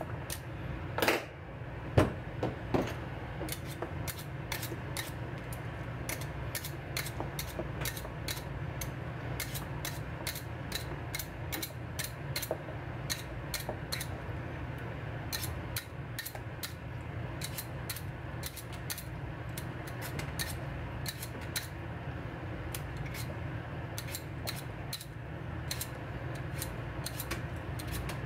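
Kitchen knife peeling a potato by hand: a steady run of short, crisp scraping clicks, about two a second, as the blade cuts strips of skin, with a few louder knocks about one to three seconds in.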